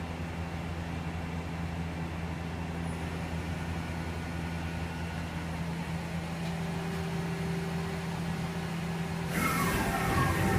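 Okuma Captain L-470 CNC lathe running a program: a steady low machine hum, with a faint higher tone joining past the middle. About nine seconds in a louder, harsher noise with shifting higher whines sets in.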